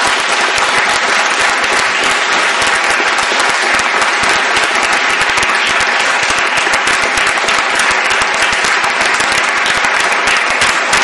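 Audience applauding, a dense mass of hand claps that stays loud and steady.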